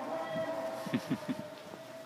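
Two dogs play-wrestling, giving short low growls and grunts about half a second in and in a quick run around one second. A steady distant tone runs underneath and fades away.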